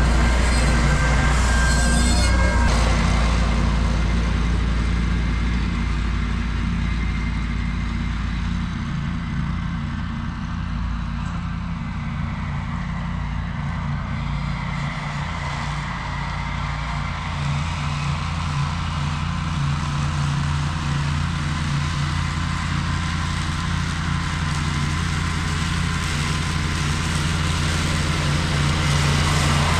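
Ventrac compact tractor running steadily with its Tough Cut mower deck cutting overgrown grass. The machine dips a little in loudness midway and builds back up near the end.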